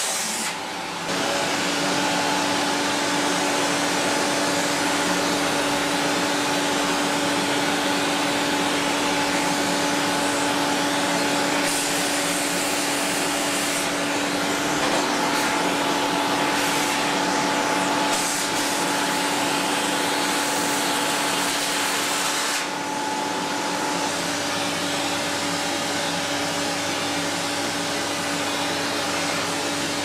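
Vacuum cleaner running steadily as its long wand sucks cobwebs from the wall-ceiling corners, a continuous rushing hiss with a steady hum. The level dips briefly about a second in and drops slightly about three-quarters of the way through.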